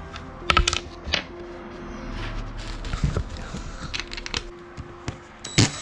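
Metal clinks and knocks as steel hinge blanks and bolts are handled and set against a wooden board, with a louder knock near the end.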